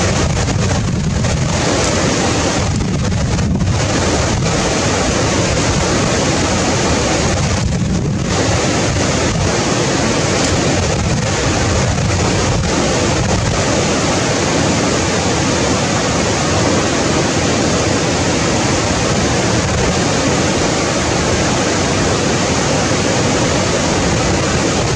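Fast mountain stream rushing over boulders: a loud, steady rush of whitewater.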